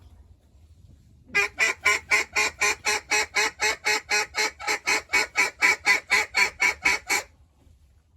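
Hand-blown duck call sounding a long, even run of short quacks, about four a second, loud and close, starting a little over a second in and stopping about seven seconds in.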